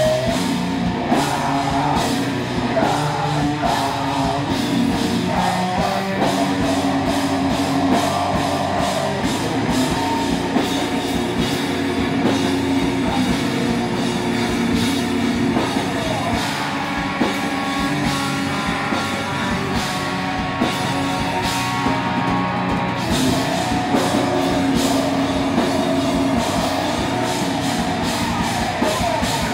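Heavy rock band playing live and loud: distorted electric guitars, electric bass and a drum kit driving a steady beat.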